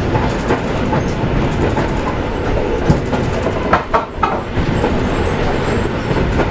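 Running noise heard inside a moving electric multiple unit passenger train: a steady rumble of wheels on rails, with a few sharp wheel clicks scattered through it.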